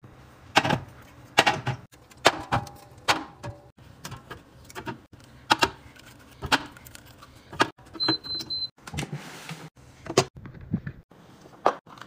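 Cans and small plastic bottles being set down one by one on a glass fridge shelf: a series of irregular sharp clinks and knocks. A short high beeping sounds about eight seconds in.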